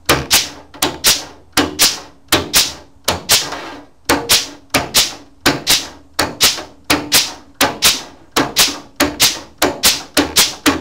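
Air flanging tool stamping a step flange into the edge of a steel quarter panel: a string of sharp metallic clacks, two to three a second and slightly uneven, each with a short ringing tail, coming a little faster near the end.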